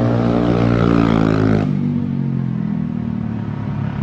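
Automatic scooter with an aftermarket racing exhaust on a stock engine, riding past: a buzzing exhaust note with several pitch lines that slides slightly down. About one and a half seconds in, the note breaks off abruptly into a lower, steadier engine sound.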